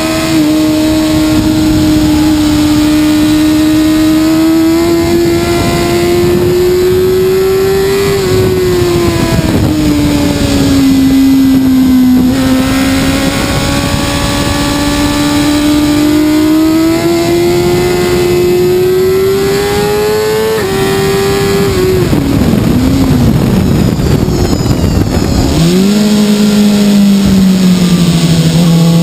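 BMW S1000RR inline-four racing engine running hard at high revs, its pitch rising and dipping with the throttle, with wind rush over the bike. About two-thirds of the way in the engine note drops sharply and wavers as the bike slows, then climbs again near the end under acceleration.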